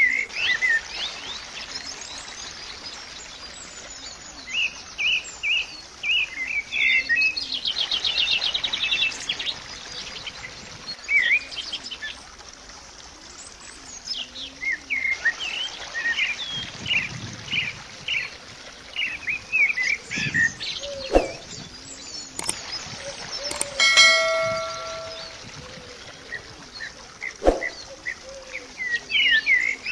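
Birds chirping and singing in many short calls, with a rapid trill about eight seconds in. Near the middle a brief ringing tone sounds, and there are a couple of sharp clicks.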